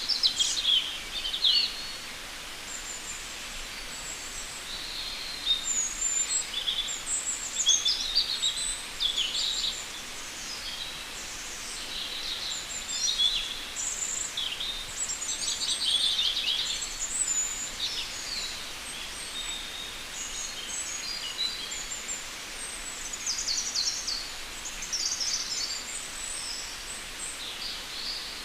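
Birds chirping and singing in short, high-pitched calls and trills, one after another throughout, over a steady background hiss.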